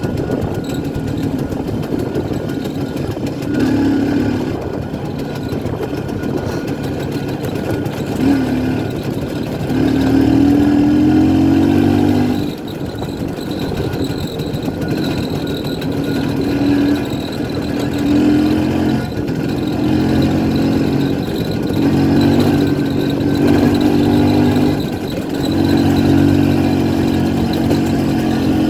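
1967 Pannonia P10 250 cc single-cylinder two-stroke motorcycle engine running under way on a dirt track, the throttle opened and eased off again and again. With each opening the engine note grows louder and climbs a little in pitch; the longest pull comes about a third of the way in and drops away sharply.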